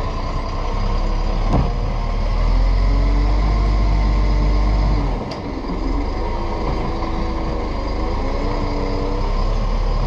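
Side-loader garbage truck's automated arm emptying a wheelie bin. The diesel engine revs steadily to drive the hydraulics, drops back about five seconds in, then rises and falls as the arm moves. Sharp knocks about one and a half and five seconds in are the bin knocking against the arm and hopper.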